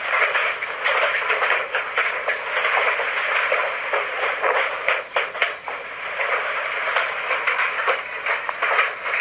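Hailstorm heard through a small speaker: a steady hiss of wind and falling ice with a dense, irregular clatter of large hailstones striking.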